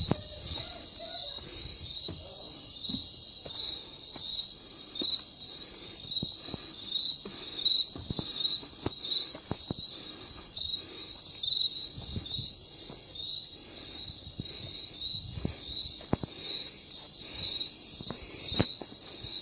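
Night insects, crickets or similar, calling in chorus: a steady high trill with loud rhythmic chirps pulsing about twice a second.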